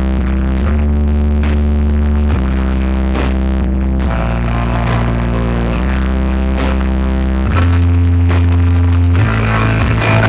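Loud music played through a large outdoor sound system of speaker stacks, with heavy held bass notes that shift pitch every second and a half or so.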